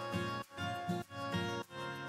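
Instrumental background music: a light tune of short pitched notes in a steady rhythm.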